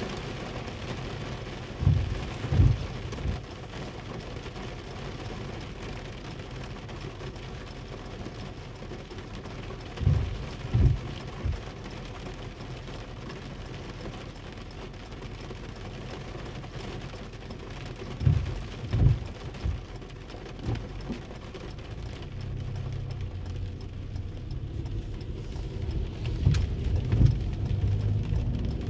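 Steady rain on a car, heard from inside the cabin, with pairs of short low thumps repeating about every eight seconds. Near the end a low vehicle hum rises as the car moves off.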